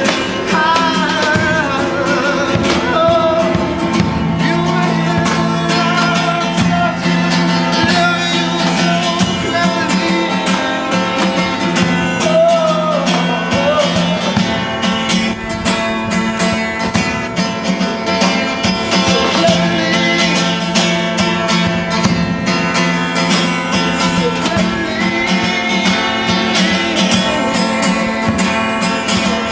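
Live music: a voice singing over guitar accompaniment.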